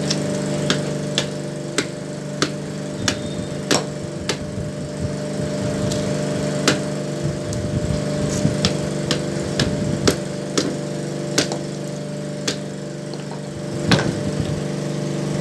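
A metal rod tapping a husked coconut's shell: sharp, irregular knocks, about one or two a second. A steady machine hum runs underneath.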